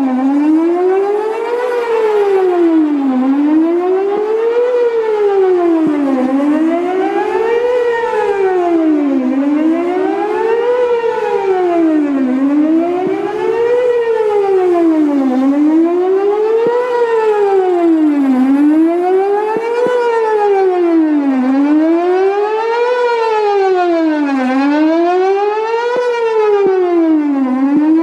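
Whelen WPS 4008 rotating electronic warning siren sounding its test tone, the pitch sweeping smoothly up and down over about an octave, one rise and fall roughly every three seconds. The owner reckons only about two of its speaker drivers are still working.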